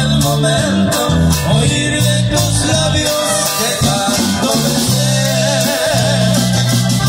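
Live regional Mexican band playing a song: electric bass and drums under a sung melody.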